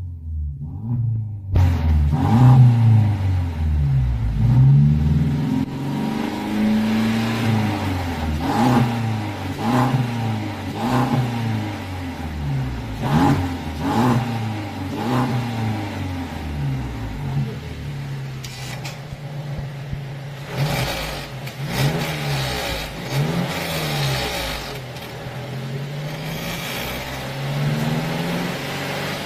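Mercedes-Benz SLC200's turbocharged four-cylinder engine free-revved through a HE'ART sport resonator exhaust in Sport Plus mode: a long series of throttle blips, each rising and falling in pitch, starting about a second and a half in.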